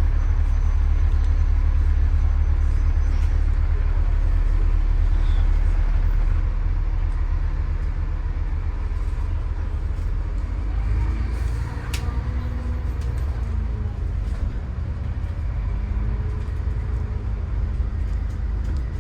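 Bus engine running, a steady low rumble that eases off a little about six seconds in, with a single sharp click about twelve seconds in.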